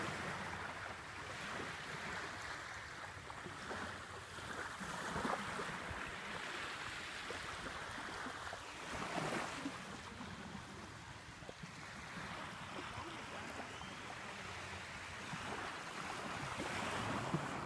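Small waves washing on a beach, with wind; the wash rises and eases every few seconds.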